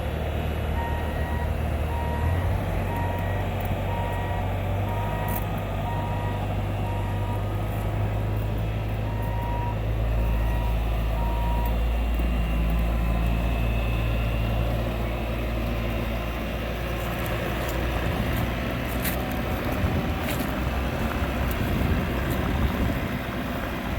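Bobcat T650 compact track loader's diesel engine running steadily, with its backup alarm beeping in an even series for the first twelve seconds or so as it reverses.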